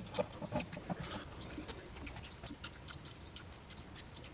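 Scattered light clicks and small taps of hands and utensils handling food while sun-dried tomato pieces are put onto a pizza.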